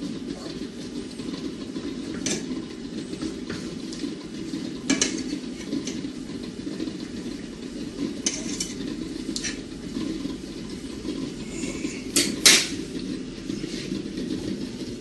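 Bacon frying on low heat in a pan on a gas stove: a steady low rush, with sharp clinks of metal cookware every few seconds, the loudest a double clank about twelve seconds in.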